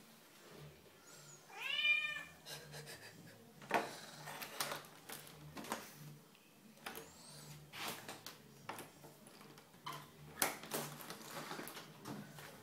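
A domestic cat gives one loud meow about two seconds in, rising and then falling in pitch. Scattered knocks and taps follow.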